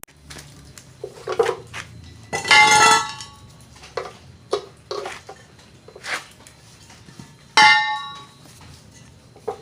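Hard metal objects knocking and clinking, with two louder ringing clangs about two and a half and seven and a half seconds in.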